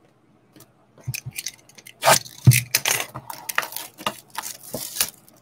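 Clear plastic shrink wrap being torn and crinkled off a cardboard trading-card blaster box, a run of crackles and rustles with a few knocks starting about a second in.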